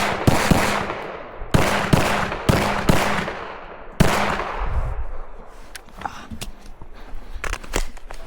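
Pistol shots fired in quick succession: about six loud, sharp reports in the first four seconds, some in close pairs, each with a short echo. After that come several fainter sharp cracks.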